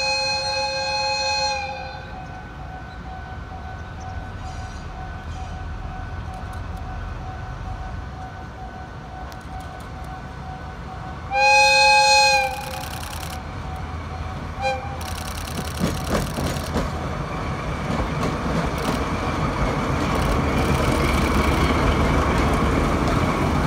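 Diesel locomotive's horn sounding twice: a blast that ends about two seconds in, then a louder one of about a second near the middle. After it the locomotive's engine and running noise grow steadily louder as it passes close by, with a few sharp clicks.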